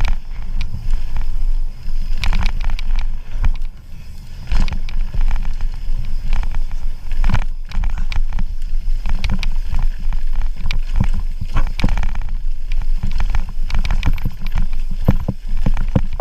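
Mountain bike descending a rough trail: a steady wind rumble on the mic with frequent sharp rattles and knocks from the bike jolting over rocks and bumps.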